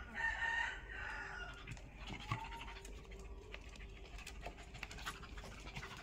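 A dog and a baby monkey scuffling: a loud high-pitched animal cry in the first second, a shorter gliding cry about two seconds in, then scattered light taps and scrabbles.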